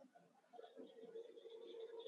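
Near silence: faint room tone, with a faint steady hum coming in about half a second in and slowly growing louder.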